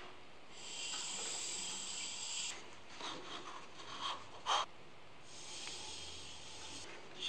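Soft hissing from work on a maple ball mounted on a wood lathe, in two stretches of about two seconds each. Between them come light knocks and clicks from handling the ball, the sharpest about four and a half seconds in.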